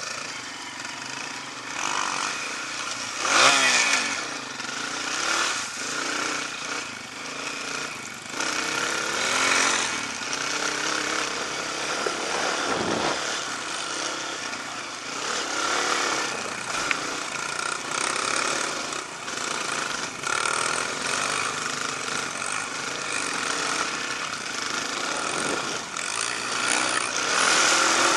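Off-road dirt bike engines running on a trail, the revs rising and falling again and again as the bikes accelerate and ease off.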